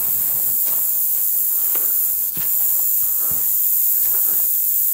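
Irregular footsteps crunching on a dirt path covered in dry pine needles and leaves, over a steady high hiss.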